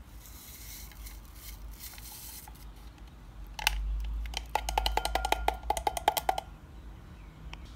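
Rustle of a powdered green-tea stick packet as the powder is shaken into a double-walled drinking glass. About three and a half seconds in comes a click, then a quick run of taps, several a second, as the stick is knocked against the glass rim to empty it, the glass ringing with each tap.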